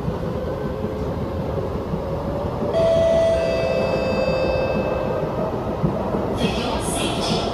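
Kawasaki C751B metro train running, with a steady rail rumble heard from inside the carriage. About three seconds in, a steady whine of several tones comes in and then fades. Near the end come a few brighter, rattling pulses.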